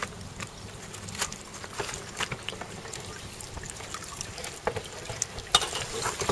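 Water trickling and splashing around a whitebait net's metal frame, with many small irregular splashes. A sharper splash or knock comes about five and a half seconds in, near when a hand takes hold of the frame.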